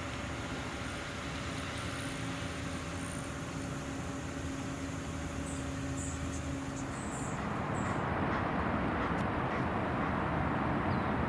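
Outdoor ambience with a steady distant engine hum that stops about seven seconds in, then a louder, even rushing noise. Faint, short, high chirps sound during the first part.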